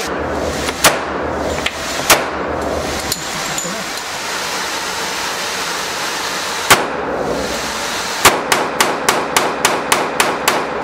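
Pistol shots at an indoor firing range: a few single shots well apart, then a quick string of about ten shots, roughly five a second, near the end.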